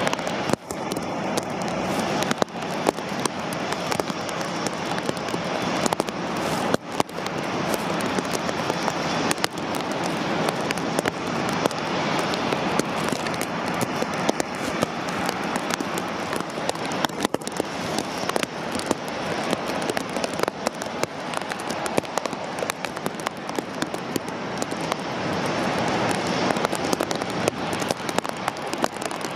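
Rain falling close to the microphone: a steady, dense run of quick ticks from the drops.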